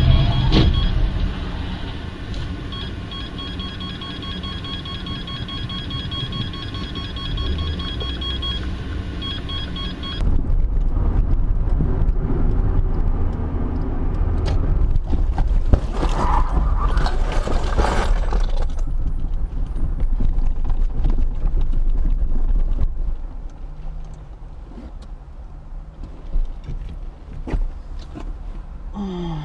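Car driving on the road, heard from inside the cabin: engine and tyre rumble with a steady high electronic tone over it for the first ten seconds. About ten seconds in the sound changes abruptly to a louder road rumble.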